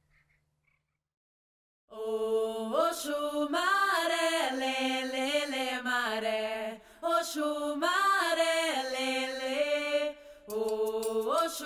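Near silence for about two seconds, then a chanted song starts: a voice holding long notes that slide up and down, in phrases with two short breaks.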